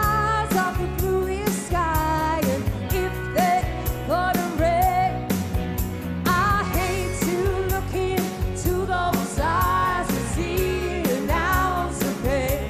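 A woman singing live over a pop-dance backing track with a steady beat and bass. Her voice slides up and down in drawn-out vocal runs.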